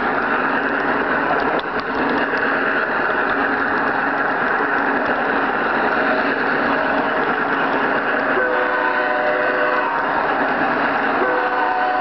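Large-scale garden railway train running along the track, its motor and gears giving a steady mechanical rattle with faint wheel clicks. About eight seconds in, a horn chord sounds for over a second, and it sounds again near the end.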